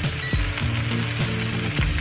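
Diced courgette, aubergine and red onion sizzling in a frying pan, with a few light knocks. Background music with a bass line plays over it.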